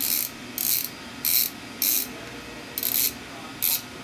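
Freshly rebuilt Profile ZCoaster BMX freecoaster hub turned by hand against its held axle: six short bursts of rapid pawl clicking as the driver ratchets. The builder takes the clicking at each end of the hub's travel as the sign of a good center spacer.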